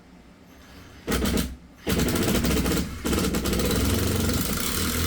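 Handheld power drill running, as when driving fasteners into the wall to mount a TV bracket. It gives a short burst about a second in, then runs steadily with a rapid rattling rhythm.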